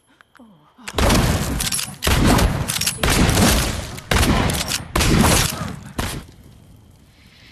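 Gunshots fired in steady succession, six in all about a second apart, each a sharp blast with a long ringing tail.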